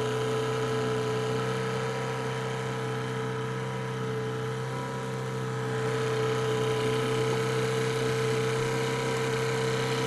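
Outboard motor pushing a Catalina 22 sailboat, running at a steady speed with an even hum, dipping slightly in level around the middle.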